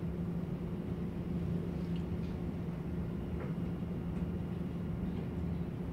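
Room tone: a steady low hum with no speech.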